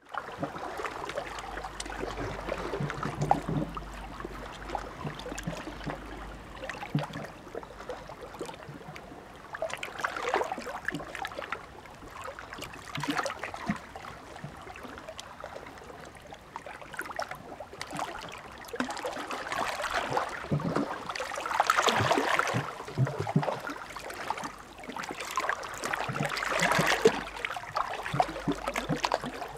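Small sea waves washing and lapping on the shore, swelling and falling back every few seconds with a fizzing, trickling wash.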